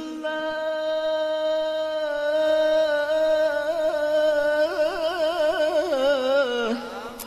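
A male qari's voice in melodic Quran recitation (tilawah), holding one long sustained note that breaks into rapid wavering ornaments in its second half, then drops in pitch and stops shortly before the end.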